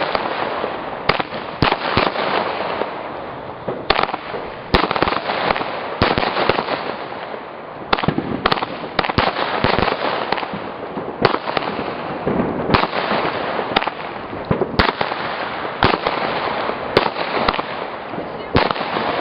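Consumer fireworks going off: a steady hiss and crackle broken by many sharp bangs, several every second or two.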